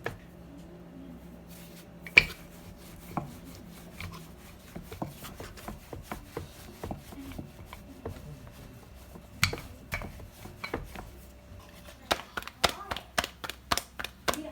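Rolling pin knocking and clicking against the rolling board as paratha dough is rolled out: scattered knocks, a sharp one about two seconds in, and a quick run of them near the end.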